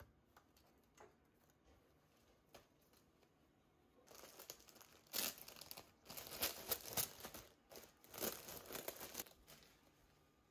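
Clear plastic poly garment bag crinkling and crackling as a shirt is handled and pulled out of it. The crackling comes in loud bursts, starting about four seconds in and lasting about five seconds, after a few faint taps.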